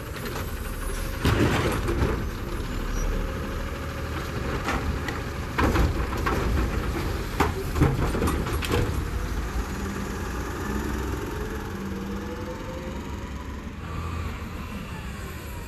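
Garbage truck's automated side arm (New Way Sidewinder on an Autocar ACX) dumping a cart, with several loud bangs as the cart is shaken into the hopper over the running engine. Near the end the engine rises in pitch as the truck pulls ahead.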